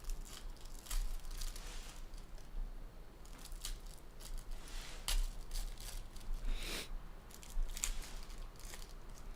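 Foil trading-card pack wrappers being torn open and crinkled by hand, in a string of short, irregular crackles and rips.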